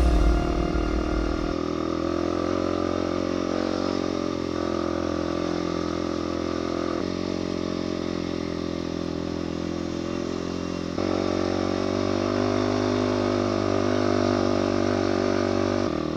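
Motorcycle engine running at fairly steady revs while riding, its pitch shifting abruptly a few times as the throttle or gear changes.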